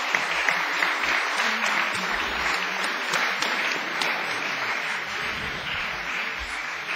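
Audience applauding, a dense even clapping that eases a little near the end.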